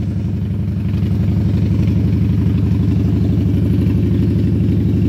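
Cruiser motorcycle engine running steadily, an even rhythmic beat with no revving.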